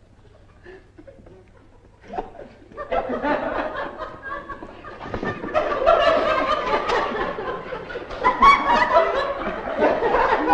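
Laughter, starting softly about two seconds in and growing louder from about three seconds on.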